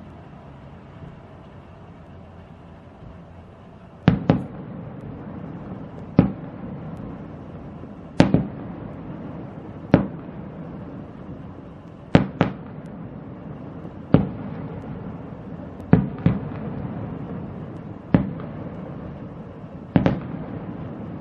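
Aerial firework shells bursting at a distance: after about four seconds of steady background noise, bangs come about every two seconds, some in quick pairs, each trailing off in an echo.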